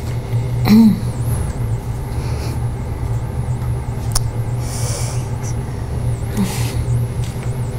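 Steady low room hum with a faint, wavering high-pitched whine above it. A short low murmur comes about a second in, a sharp click near four seconds, and a brief soft rustle around five seconds.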